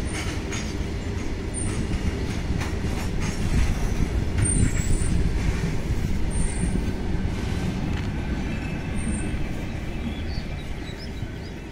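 Freight train of covered goods wagons rolling past: a low rumble of wheels on rail with short high wheel squeals every second or two. The brake van goes by midway and the sound fades as the train moves away.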